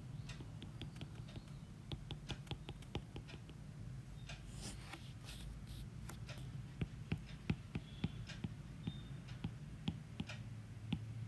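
Scattered light clicks and taps of a pen working over a page as a diagram is drawn, over a steady low hum.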